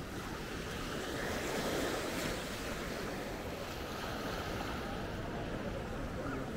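Small waves breaking and washing up on a sandy shore, swelling a little about two seconds in, with some wind on the microphone.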